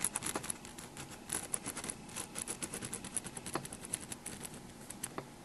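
Ballpoint pen scratching across notebook paper in quick, short, irregular strokes while outlining a drawing.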